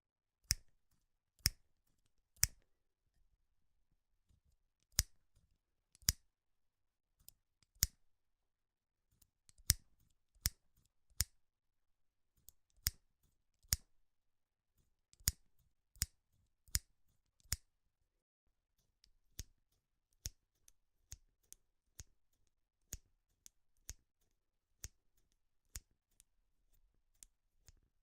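Scissors snipping, a series of sharp separate cuts about one or two a second with short pauses between, the later ones quieter and more evenly spaced.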